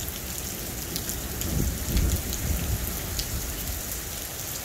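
Steady rain falling on a street and wet ground, with a low rumble of thunder swelling in about a second and a half in and fading a second later.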